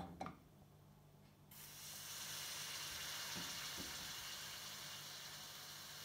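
A steady sizzling hiss from a geyser-type stovetop coffee maker heating on a gas burner, starting about a second and a half in. A light clink of the ceramic pot being handled at the very start.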